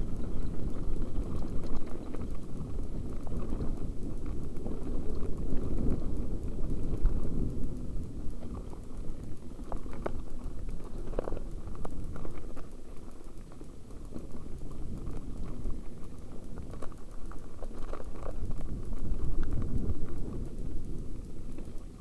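Mountain bike riding down loose dirt singletrack, heard from a helmet-mounted camera: a continuous low rumble and rattle of tyres on gravelly dirt and the bouncing camera mount, with a few sharper clicks about ten and eleven seconds in.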